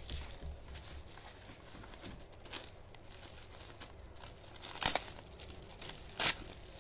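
Yellow packing tape peeled and ripped off a bubble-wrapped parcel, with soft crinkling of the plastic wrap and two short, sharp rips about five and six seconds in.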